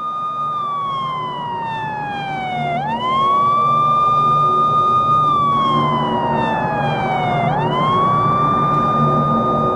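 An emergency-vehicle siren wailing. Its pitch holds high, slides slowly down for about two seconds, then sweeps quickly back up, twice over, above a steady noisy rumble.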